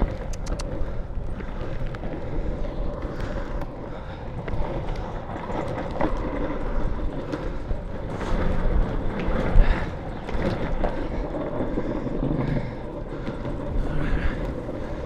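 Longboard wheels rolling over pavement: a steady, rough rumble with a few sharp clicks near the start.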